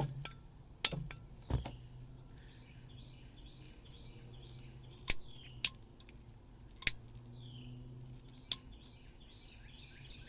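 Sharp, irregularly spaced clicks and taps from the four-way flasher switch on a Nissan 720's steering column being struck to free its dirty, sticking contacts. Birds chirp in the background.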